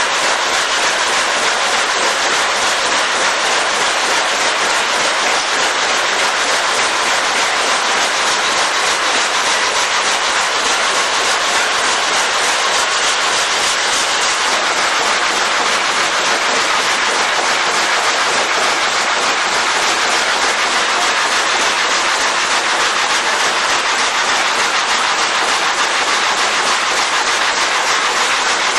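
Sawmill log frame saw running, a loud, steady, fast mechanical clatter of the reciprocating saw frame and feed rollers as a log is fed through.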